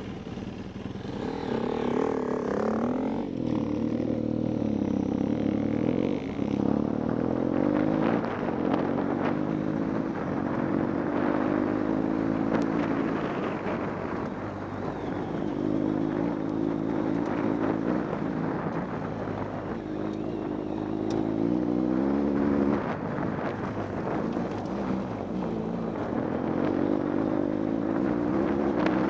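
Motorcycle engine running under way, its revs climbing and dropping back sharply several times as it changes gear.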